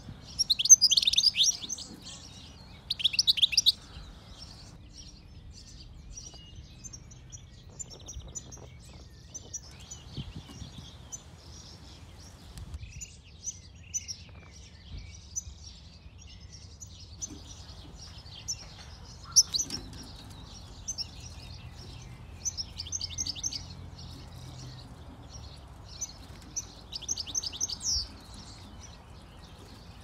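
European goldfinches twittering and calling in quick, high trills. The loudest bursts come in the first few seconds and again about twenty and twenty-eight seconds in.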